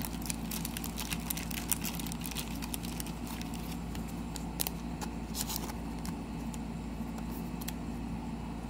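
Trading cards being handled and flipped through, a scatter of soft clicks and rustles of card stock sliding against card stock, over a steady low hum.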